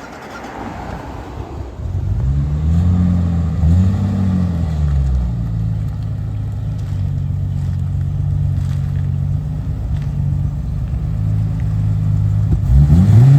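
Toyota Supra's engine running, its revs rising and falling twice a few seconds in, then holding steady, with another sharp rise in revs near the end.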